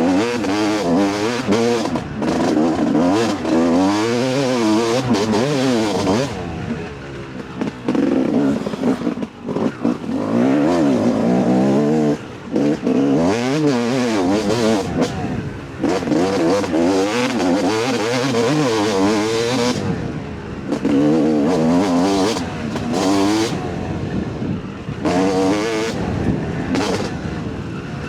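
Two-stroke 250 dirt bike engine being ridden hard on a trail, its pitch climbing and falling over and over as the throttle is worked, with brief throttle-offs every few seconds.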